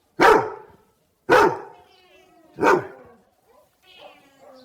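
A dog barking: three sharp barks about a second apart, with faint wavering higher sounds between them.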